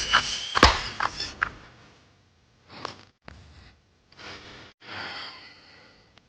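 A woman snoring softly in her sleep: several short, breathy snores a second or so apart, after a couple of sharp clicks in the first second.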